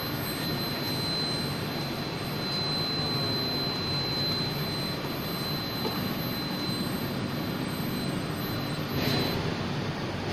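CNC tool grinder running: a steady rushing noise with a thin high whine over it that cuts off about nine seconds in.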